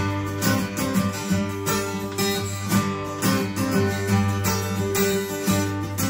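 Mahogany-topped Martin acoustic guitar, played with a flatpick: bass notes and strums in a steady rhythm, the instrumental introduction to a folk song before the singing comes in.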